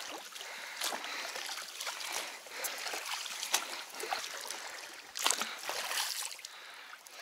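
Oars of an inflatable rowing boat pulling through calm water, a splash with each stroke every second or so, over steady trickling and gurgling along the hull.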